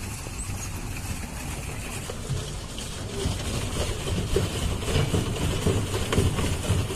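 Pedal boat being pedalled across a lake, its paddle wheel churning the water in a steady rush. Uneven low thumps grow stronger about halfway through.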